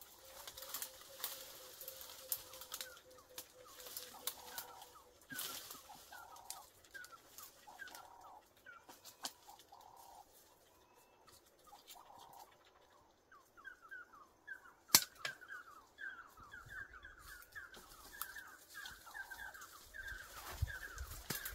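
Birds calling with short falling chirps, scattered at first and then in a quick run through the second half. Twigs and branches crack and rustle as a man climbs through the tree, with one sharp snap about two-thirds of the way in.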